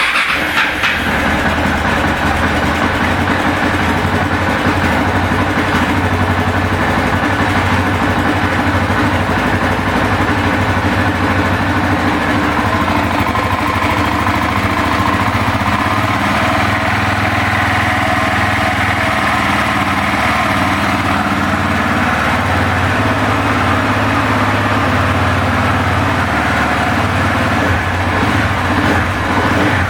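KTM 690's single-cylinder engine running steadily at idle.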